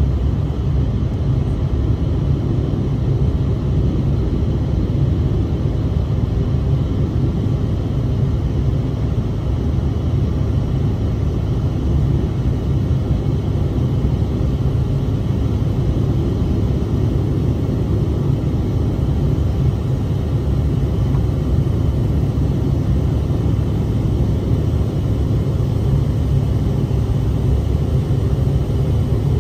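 Steady cabin drone of a Bombardier CRJ-700 (CRJ-701ER) climbing after takeoff: its rear-mounted GE CF34-8C turbofans at climb power and the rush of air over the fuselage, heard inside the cabin as an even low rumble.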